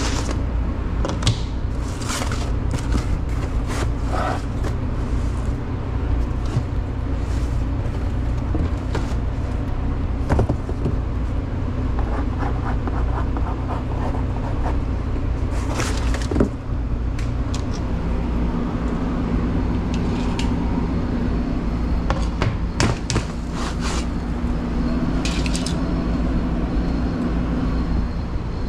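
Steady low hum of kitchen machinery, with scattered clicks, taps and scrapes from pizza boxes being handled and a pizza being slid into a box; a second, higher hum joins about two-thirds of the way through.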